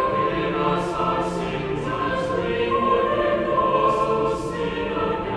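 Choral music: a choir singing slow, held notes.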